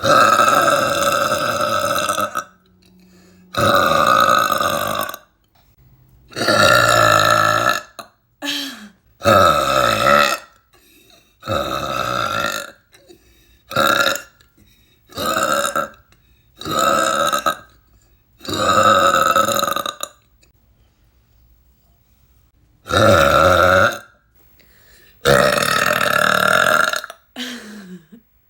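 A young woman burping loudly over and over: about a dozen long, deliberate burps of one to two seconds each, with short gaps between them and a longer pause about two-thirds of the way through.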